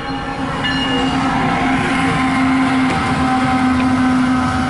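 CSX diesel locomotive at the head of an intermodal train passing close by, running with a steady held tone over a dense low rumble. The sound swells during the first second and then holds level.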